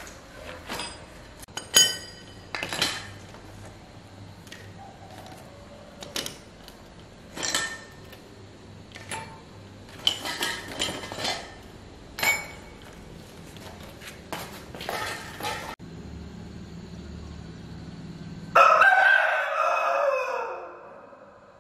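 Metal hand tools clinking and clacking as they are taken from a basket and set down one by one on a plastic tarp. Near the end a rooster crows once, loudly, its call falling away over about two seconds.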